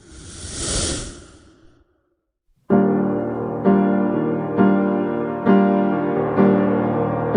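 A swell of noise that rises and fades over the first two seconds, then, after a brief gap, piano music with the same chord struck about once a second.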